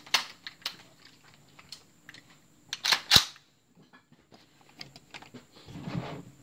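Handling noises while an AR-15 is readied: scattered light clicks and rustles, with one louder sharp metallic clack about three seconds in.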